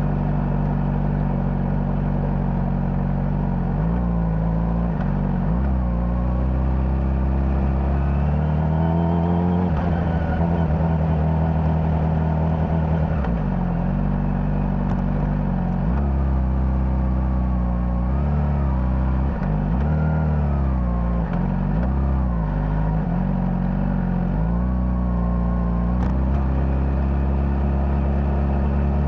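Honda CBR600RR's inline-four engine through its stock exhaust, heard from on the bike while riding: the revs rise and fall repeatedly with throttle changes and gear shifts, with a longer climb in pitch from about eight to thirteen seconds in.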